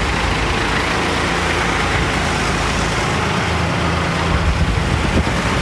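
Farm tractor engine running steadily with a constant low hum.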